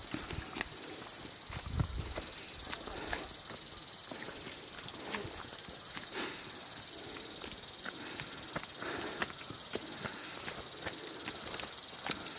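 Steady high-pitched insect chorus, with scattered light clicks and knocks.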